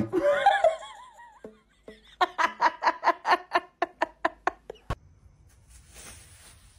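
A person laughing in a quick run of ha-ha-ha bursts, about five a second, for a little over two seconds, ending in a single sharp click.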